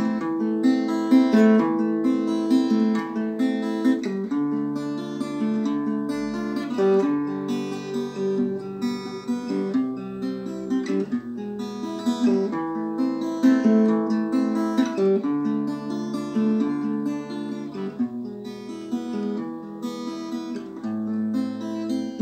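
Acoustic guitar strummed alone, a steady run of chords that change every second or so.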